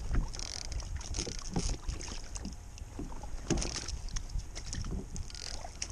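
Water splashing and lapping at the side of a kayak, with scattered knocks and rustles as a live mackerel is handled and put into a live-bait bag hung over the side. A low wind rumble on the microphone runs underneath.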